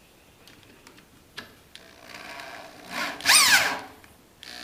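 Cordless drill driving a lag bolt into the pre-drilled end of a square wooden stick. A softer run comes about two seconds in, then a loud burst about three seconds in, the motor's whine rising and then falling in pitch as the drill speeds up and slows.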